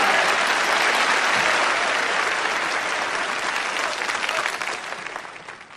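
A large crowd clapping, dense applause that dies away over the last couple of seconds.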